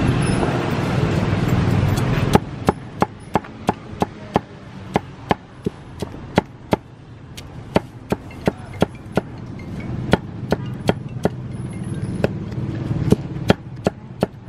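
Meat cleaver chopping crisp-skinned roast pork on a chopping board: a steady run of sharp chops, about three a second. Street traffic rumbles loudly for the first two seconds and again more softly near the end.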